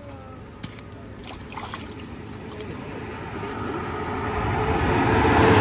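A motor vehicle approaching along the road, its engine and tyre noise growing steadily louder toward the end.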